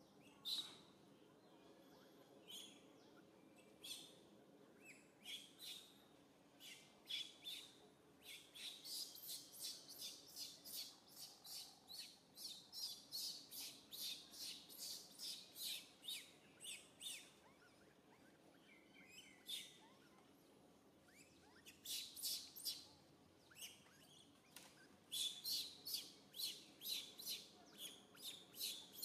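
A bird chirping in short, high, repeated notes, two to three a second, in two long runs: one from about a third of the way in to just past halfway, and another near the end.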